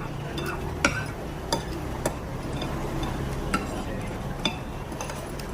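Metal spoon clinking against a plate while eating: about six sharp, irregular clicks with a short ring, over a steady low background hum.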